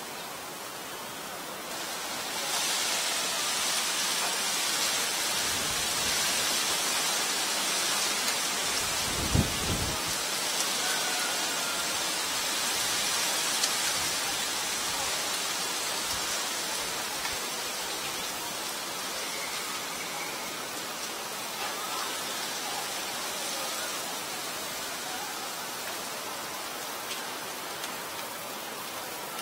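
A steady rushing hiss, like rain or wind, that grows louder about two seconds in. There is a brief low rumble around nine seconds in.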